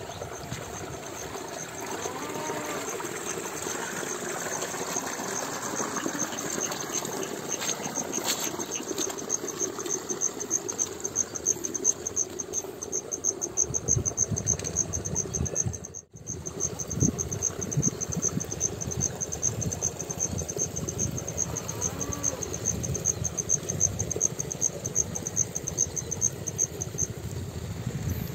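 Insects trilling steadily in a fast, high-pitched pulsing chorus, with a brief dropout about halfway through. An irregular low rumble joins in the second half.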